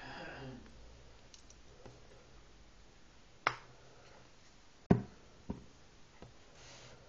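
A honey squeeze bottle gives a short sputter as it is squeezed, then a few sharp clicks and knocks, the loudest about five seconds in, as the bottle is handled and set down on the wooden worktop.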